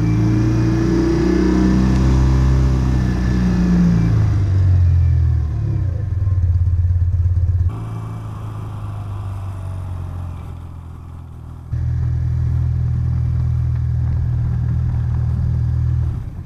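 BMW Airhead air-cooled flat-twin motorcycle engine running under way, rising in pitch as the bike accelerates over the first few seconds. About eight seconds in the sound drops suddenly and turns quieter. It comes back loud and steady about four seconds later.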